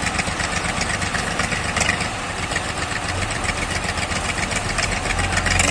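Tractor diesel engine running at low revs with a steady clattering rattle; its low throb grows heavier about three seconds in and again near the end.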